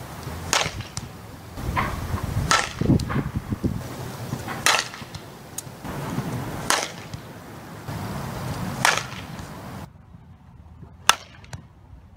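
A softball bat hitting pitched balls: a sharp crack about every two seconds, five times, with fainter knocks between, then one more hit near the end.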